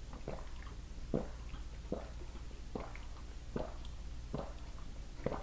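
A person drinking lemonade through a straw, swallowing in a steady rhythm of about seven gulps, roughly one every 0.8 seconds.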